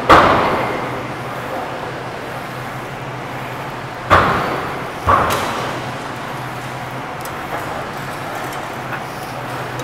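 Sharp metal clanks of gym weight equipment, three of them, the second and third about a second apart, each fading over about a second in a large echoing gym hall, over a steady low hum.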